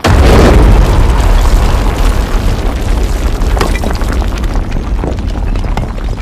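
A sudden loud boom that runs on as a long rumbling roar with scattered crackles, slowly easing off: an explosion sound effect.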